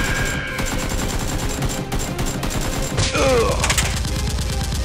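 Rapid automatic gunfire, a continuous fusillade of shots, as added sound effects for toy blasters in a mock firefight. About three seconds in, a short falling pitched sound rises over the shots.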